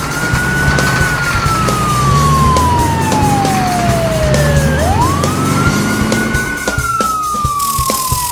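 Cartoon sound effect of a tow truck's siren wailing over a low engine rumble. The siren makes two slow cycles, each a quick rise and then a long, slow fall, with the second fall starting near the end.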